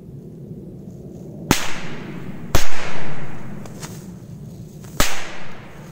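A multi-bang Corsair 3 firecracker going off: three sharp bangs, about a second and a half in, a second later, and near the end, the middle one the loudest, each trailing off in an echo.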